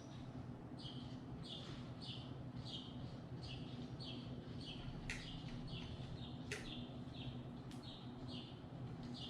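A small bird chirping over and over, about two short chirps a second, over a low steady hum, with a few sharp clicks in the second half.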